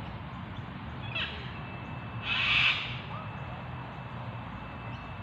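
A bird's harsh call, loudest just after two seconds in and lasting about half a second, following a shorter call about a second in, over a steady low background rumble.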